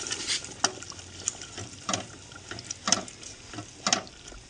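A wooden spatula stirring thick, wet meat gravy in an aluminium pressure cooker pot. It scrapes or knocks against the pot about once a second, over a steady wet stirring noise.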